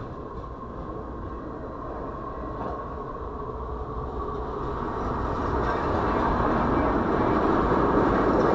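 CSX freight train's tank cars and flatcars rolling past close by: a steady rumble and rattle of steel wheels on the rails that grows louder in the second half. It is heard from inside a car beside the track.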